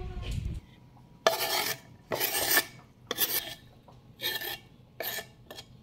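Knife rasping across fresh cilantro on a wooden cutting board, in strokes about once a second.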